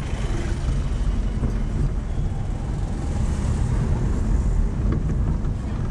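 Steady low rumble of a Renault 16 TS on the move, heard from inside the cabin: engine and road noise with no words over it.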